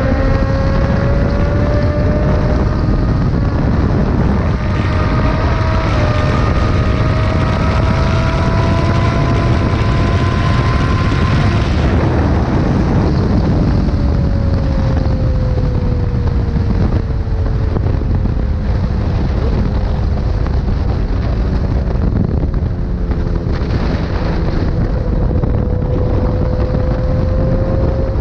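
Sport motorcycle engine at road speed under heavy wind rumble on the microphone. The engine note climbs slowly, drops away about twelve seconds in, then sinks slowly and rises again near the end.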